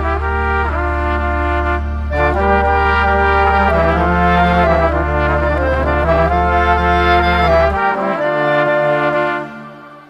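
Background music with held brass-like notes over a steady deep bass tone. The bass drops out about three-quarters of the way through, and the music fades away near the end.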